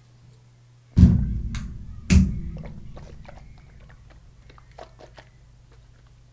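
Two heavy low thuds about a second apart, each dying away slowly, followed by scattered light clicks and taps.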